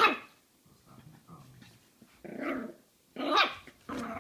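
Jack Russell Terrier puppy barking and growling in play: a sharp bark right at the start, then three more short barks and growls over the last two seconds.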